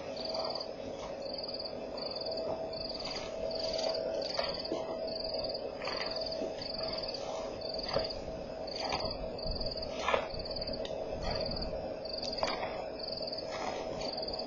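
Night insects chirping in short, even trills about twice a second over a steady lower drone, with a few scattered knocks.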